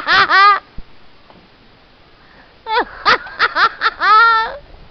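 A person laughing in high-pitched giggles, in two bursts: one right at the start and a longer one from just under three seconds in, ending on a drawn-out falling note.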